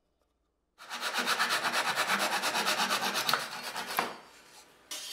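Hand saw cutting through a wooden board in quick, even strokes, starting about a second in and stopping about a second before the end.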